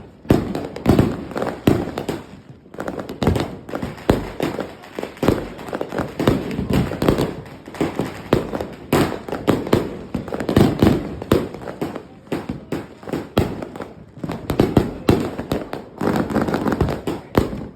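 Fireworks finale barrage: many aerial shells and cakes firing and bursting at once in a continuous, overlapping run of bangs and crackles.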